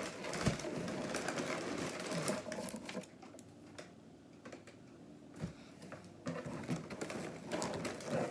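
Cardboard box and plastic childproof scissors being handled: a dense run of scraping and rapid clicks, dropping about three seconds in to quieter scattered clicks and rustles, then picking up again near the end.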